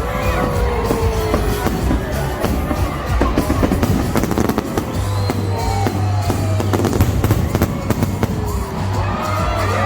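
Fireworks bursting overhead in a rapid run of bangs and crackles, thickest a few seconds in, over loud background music.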